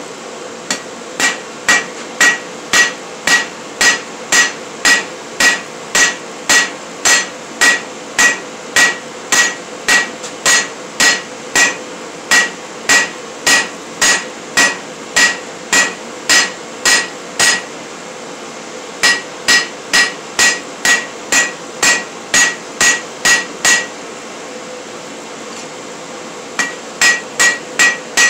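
Hand hammer striking the red-hot end of a steel bar on an anvil, flattening it, about two blows a second, each with a bright ring. The blows come in three runs broken by two short pauses, over a steady hum.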